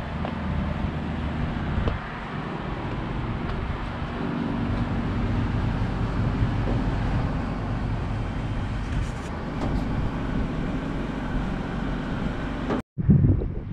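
Steady outdoor rumble and hiss of wind on the microphone, with a low hum underneath. The sound cuts out for an instant near the end.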